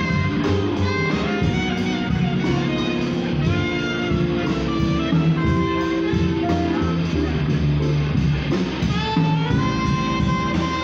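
Live jazz quartet playing: saxophone carrying the melody over a drum kit, plucked upright bass and electric keyboard.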